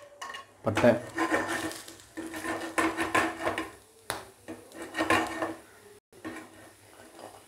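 Whole spices, including cinnamon sticks, cloves and cardamom, dropped by hand into an aluminium frying pan, clattering against the metal in a few bursts.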